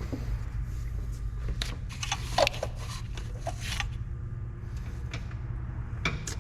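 Cloth rag rustling and rubbing in a series of short wiping strokes, over a steady low hum.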